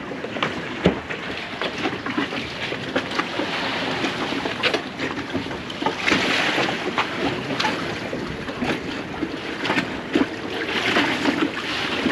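Wind gusting over the microphone on an open boat deck, with water moving against the hulls and scattered light knocks and clicks. The wind swells in gusts about halfway through and again near the end.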